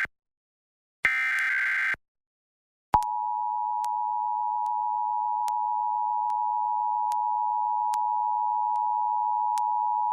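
Emergency Alert System test signal: a burst of screechy digital data tones (the SAME header) ends just at the start and a second one-second burst follows about a second in; about three seconds in, the EAS two-tone attention signal starts and holds steady, marking a required monthly test.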